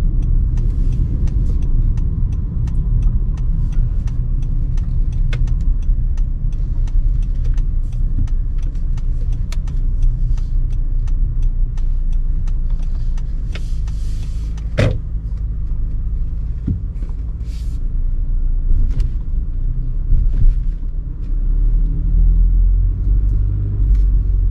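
Car cabin road noise while driving slowly: a steady low rumble of tyres and engine, with scattered light ticks and knocks and one sharper click about fifteen seconds in.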